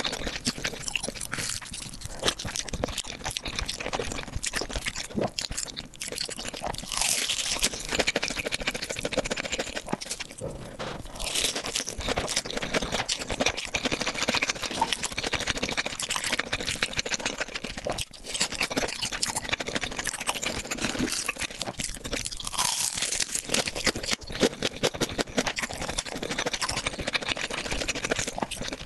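A person eating close to the microphone: continuous crunching and chewing, a dense run of small crackles, louder in a few stretches.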